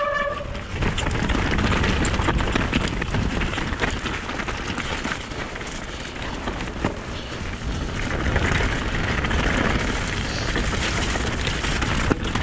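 Mountain bike riding down wet, stony singletrack: knobbly tyres rolling over gravel and through water, with the bike rattling and clicking over the bumps. A steady, high brake squeal, typical of wet disc brakes, cuts off about half a second in.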